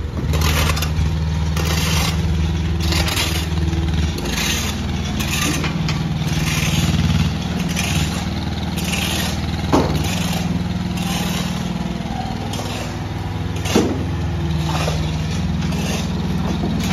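Mini excavator's diesel engine running steadily while digging, with repeated short scrapes about once a second and two sharp knocks, about ten and fourteen seconds in.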